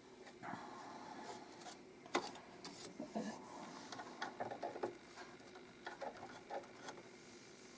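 Small lint brush scrubbing and flicking in the feed-dog and bobbin area of a sewing machine under the removed needle plate: faint, irregular scratching with small clicks and ticks, one sharper click about two seconds in.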